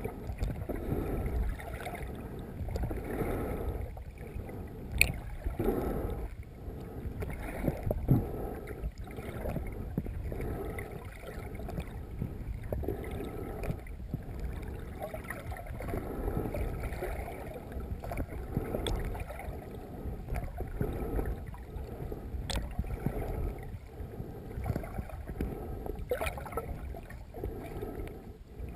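Muffled underwater water noise from a snorkeler swimming with the camera underwater: a low churning that swells and fades every second or two, with a few sharp clicks.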